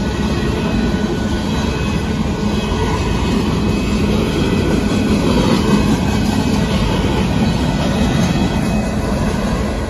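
Freight train of covered hopper cars rolling past at a grade crossing: a steady rumble of steel wheels on the rails.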